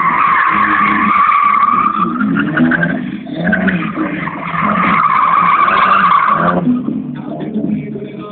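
Drift car's tyres squealing in two long squeals, the second starting about four seconds in, while its engine revs up and down, plainest in the gaps between the squeals.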